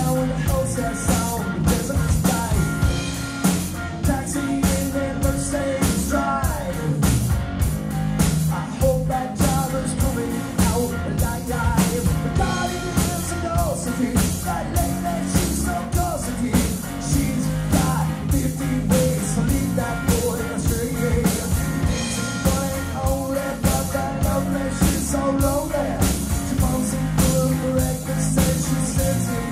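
Live rock band playing a song: electric guitar, bass guitar and drum kit, with a man singing lead vocals over them.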